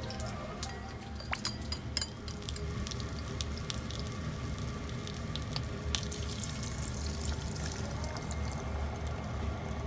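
Water and starch slurry poured from a plate into a hot frying pan of gyoza, hissing and sizzling from about six seconds in, over a steady low hum. A few sharp clicks come about a second and a half in.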